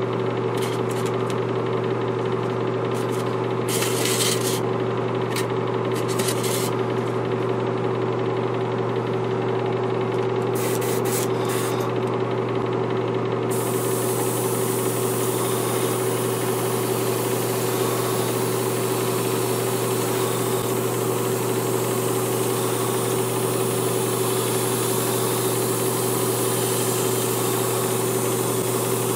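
Airbrush compressor running with a steady hum. In the first half the airbrush gives a few short hisses of air, then from about halfway it sprays continuously with a steady hiss, at about 25 PSI.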